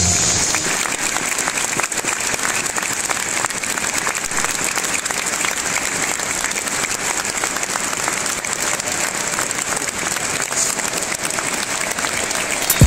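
A large stadium crowd applauding steadily, a dense even patter of many hands clapping.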